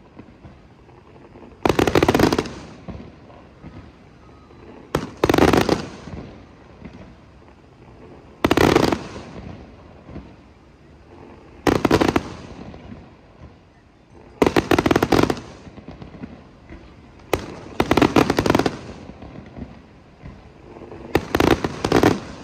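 Fireworks display: salvos of aerial shells bursting in quick volleys of cracks and booms, each volley lasting about a second and coming roughly every three seconds, about seven in all.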